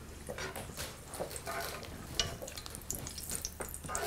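Wooden spatula stirring and scraping smen (ghee) and oil heating in a stone-coated sauté pan, with a faint sizzle and scattered light ticks.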